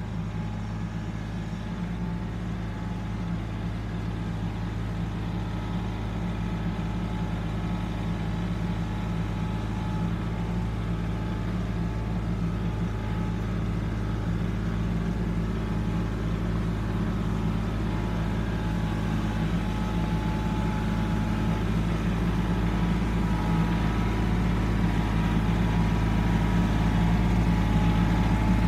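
Compact tractor engine running steadily under load as the tractor drives closer, growing gradually louder.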